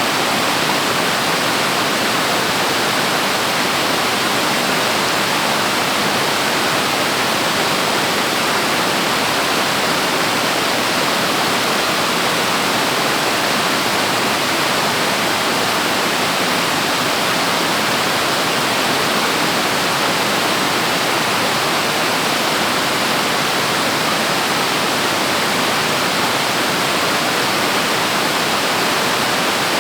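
Waterfall crashing, a loud, steady rush of falling water.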